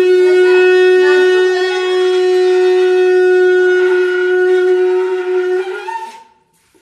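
Conch shell (shankh) blown in one long, steady, loud note of about six seconds, which breaks briefly upward in pitch as it dies away near the end.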